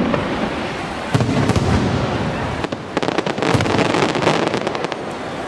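Aerial fireworks going off: low booms about a second in, then a rapid run of sharp crackling bangs from about three to five seconds in.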